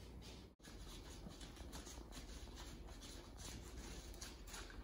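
Two Cavalier King Charles Spaniel puppies licking and nosing at a food dish on the floor, heard as faint, irregular clicks and scrapes.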